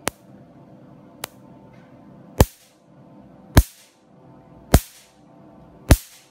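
Nd:YAG picosecond laser firing single pulses at 532 nm onto skin: six sharp snaps about 1.2 seconds apart, the first two light and the last four loud, over a faint steady hum from the laser unit.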